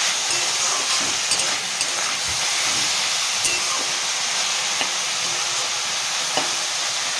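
Chopped bathua greens and flat beans sizzling in hot oil in a metal kadai: a steady hiss, with a few light clicks of the spatula against the pan as they are stirred.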